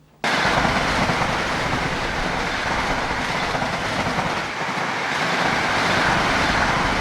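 A passenger train running along the track, a steady loud noise of wheels on rails that cuts in abruptly about a quarter second in.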